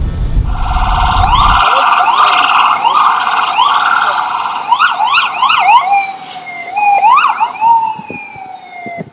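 Emergency vehicle siren, with a low rumble under it for the first second and a half. The siren sweeps up in pitch over and over, about twice a second, then switches to quicker up-and-down sweeps. Near the end it winds down in a long falling tone.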